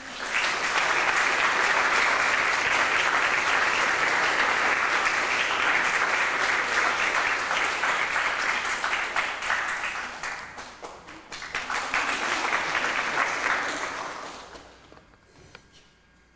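Audience applause that starts suddenly as the piece ends, dips briefly about ten seconds in, swells again, then dies away near the end.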